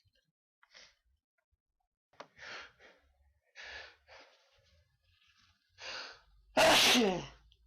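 A person sneezing. Several short, breathy in-breaths build up over about six seconds, then one loud sneeze comes near the end, its voiced tail falling in pitch.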